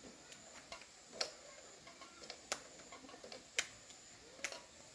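Faint, irregular sharp taps, the four loudest about a second apart.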